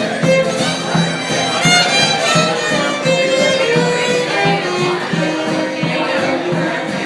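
A fiddle plays a melodic solo over a steady rhythmic accompaniment in a live band, as an instrumental break between sung verses.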